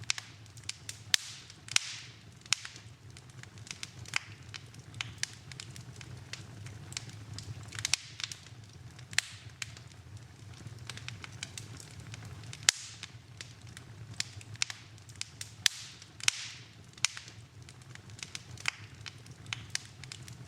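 Wood fire in a fireplace crackling, with irregular sharp snaps and pops, a few each second and some much louder, over a low steady rumble.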